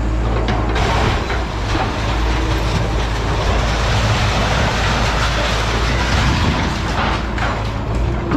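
Diesel engine of a scrapyard grapple (claw) machine running with a steady low rumble, with a few brief knocks and clatters over it.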